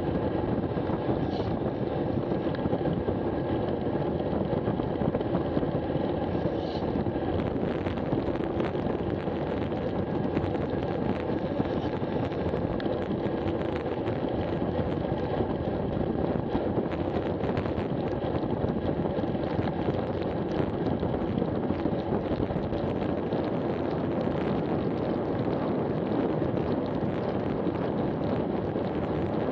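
Steady rush of wind buffeting an action camera's microphone on a road bike descending at about 60 km/h.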